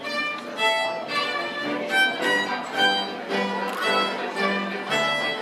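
Fiddle playing a tune, its bowed notes changing every fraction of a second, with a lower bowed string pulsing in a steady beat from about three seconds in.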